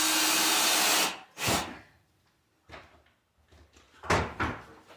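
A power tool's motor runs steadily and cuts off about a second in, followed by a few separate knocks and clunks of handling.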